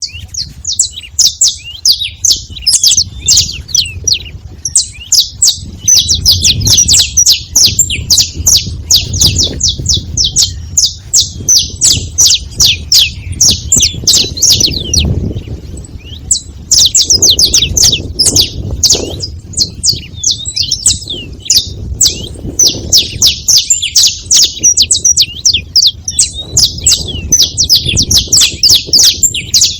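Saffron finch chirping in a fast, dense stream of short, high notes, nearly without pause, easing off briefly about halfway through.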